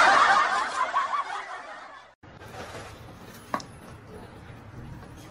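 A burst of people laughing that fades out over about two seconds and stops abruptly. After it comes a low background with one sharp click at about three and a half seconds.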